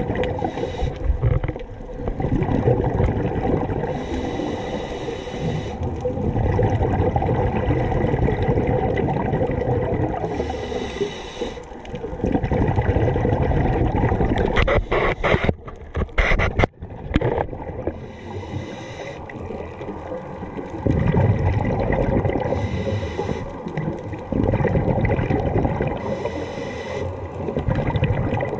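Scuba diver breathing through a regulator underwater: a hissing inhale about every four to eight seconds, alternating with the low bubbling of exhaled air. A few sharp crackles come about halfway through.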